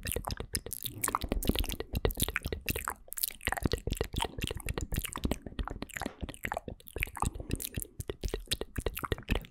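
Close-miked ASMR mouth sounds layered over one another: a dense, irregular stream of wet clicks and smacks.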